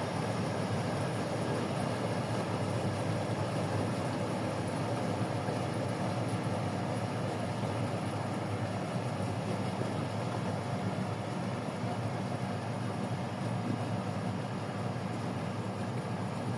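Engine of a rice harvesting machine running steadily, an even drone with no breaks or changes in pace.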